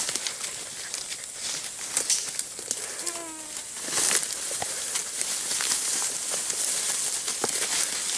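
Footsteps rustling through forest undergrowth, with twigs and dry litter crackling in many small clicks. About three seconds in, a short, slightly falling whining call.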